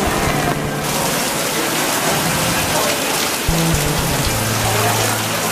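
Steady rain falling on wet pavement and roofs, a continuous hiss of rain.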